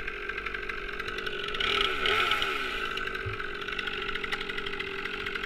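Stihl MS 362 C-M two-stroke chainsaw running steadily, getting louder for about a second around two seconds in as its pitch shifts, then settling back.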